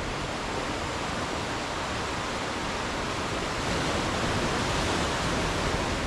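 Ocean surf washing against a shore of rounded stones: a steady rushing noise that swells a little about four seconds in.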